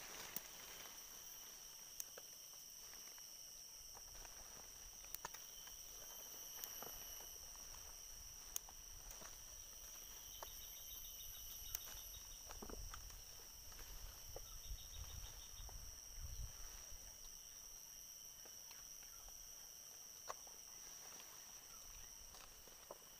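Faint, steady high-pitched drone of insects, with two short bursts of rapid pulsed chirping in the middle. There are scattered small clicks and a low rumble around the middle.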